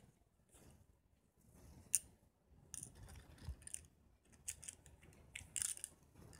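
Bangles clinking against one another as they are worked over the hand onto the wrist: short clusters of bright clinks, the sharpest about two seconds in.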